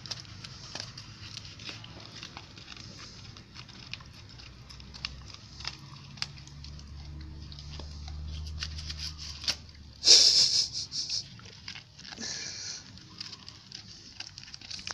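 A dog chewing and tearing at a plastic instant-noodle wrapper: steady crinkling and crackling with many sharp clicks, and a loud burst of rustling about ten seconds in, with a smaller one a couple of seconds later.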